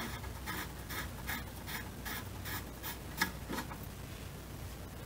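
Wrench turning a rusty 11 mm brake line fitting loose, metal on metal: a run of short scraping clicks about two or three a second, with one sharper click a little after three seconds, then it stops.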